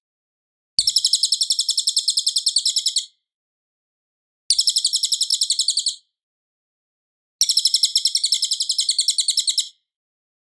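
Cililin bird song, loud and clear: three bursts of fast, rapidly repeated high chattering notes, each two to three seconds long, with short pauses between.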